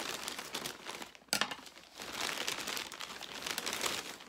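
Plastic shipping mailer crinkling as it is cut open with scissors and handled, with one sharp, loud crackle about a second and a half in.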